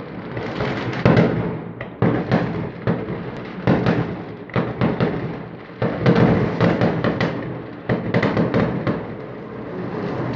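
Fireworks going off in a courtyard between high-rise buildings: a quick, irregular string of bangs and crackles, each boom echoing.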